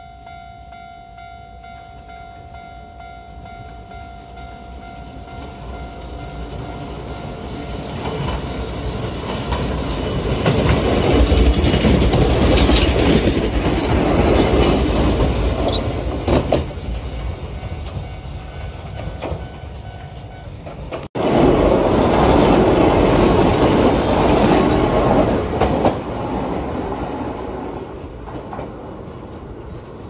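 Level crossing alarm ringing as an electric train approaches and passes close by, its wheels clattering over the rail joints. After an abrupt break, a second train passes and fades away.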